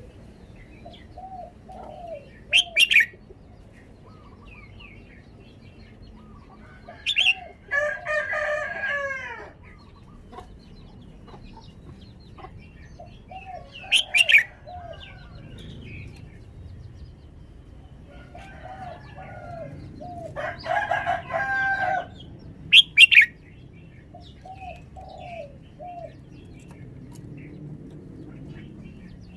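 Red-whiskered bulbul calling with short, loud, sharp phrases every several seconds, four times in all. Two longer, drawn-out calls come about eight and twenty seconds in, and softer chirps run in between.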